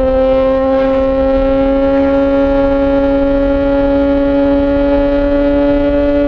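Yamaha XJ6 S's inline-four engine through an SC-Project aftermarket exhaust, held at steady high revs while riding. Its note rises very slightly, over a low rumble of wind.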